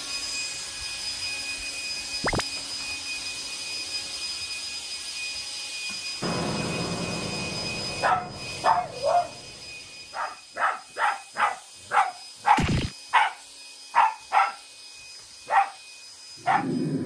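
A cordless stick vacuum cleaner runs with a steady high whine. From about eight seconds in, a black Shiba Inu barks at it in a rapid string of about fifteen short, sharp barks: the dog's hostility towards the vacuum cleaner.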